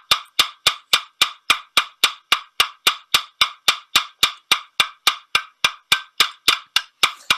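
Ball-pein hammer peening over the end of a steel rapper sword handle rod held in a vise, riveting it over the collar: quick, even metallic taps, about four a second.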